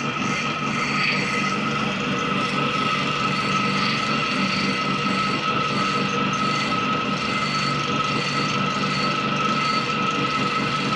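Clipper blade sharpening machine running steadily with a constant whir and a steady high whine, its rotating plate grinding a rusty, blunt clipper cutting blade held on by a magnet, with sharpening compound applied.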